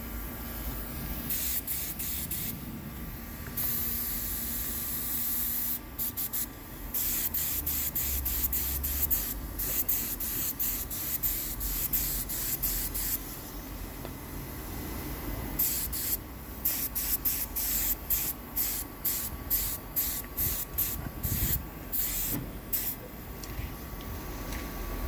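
Paint spray gun hissing in on-off passes as the first coat of a three-stage pearl paint goes on. Longer sprays in the first half give way to a quick run of short bursts later on, over a steady low hum.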